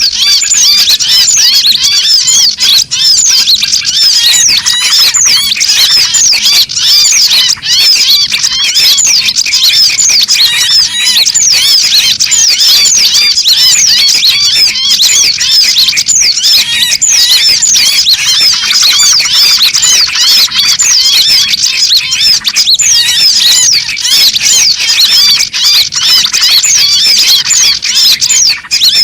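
Loud small-bird lure recording for bird trapping: many small songbirds calling at once, with short high calls overlapping thickly and without a break.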